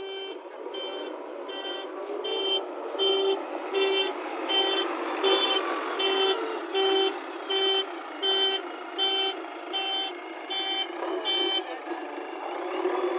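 JCB 3DX backhoe loader's reversing alarm beeping steadily, about three beeps every two seconds, over the running engine; the beeping stops near the end.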